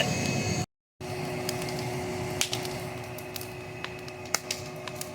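Fire burning the old kitchen cabinets: a steady rush of flame with scattered sharp pops and crackles, cut by a brief dropout early on.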